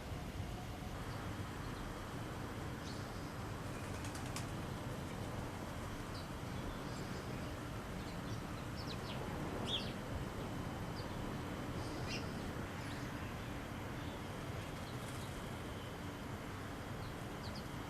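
Steady outdoor background hiss with a few short, high bird chirps scattered through it.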